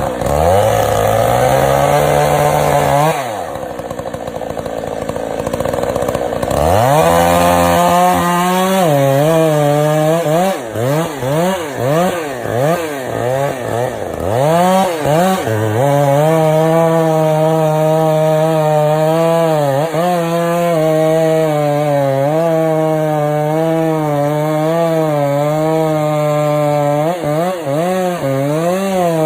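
Chainsaw running and cutting wood. It drops to a low idle about three seconds in, is revved up and down in short bursts, then runs steadily at high speed with its pitch sagging and recovering under the cut.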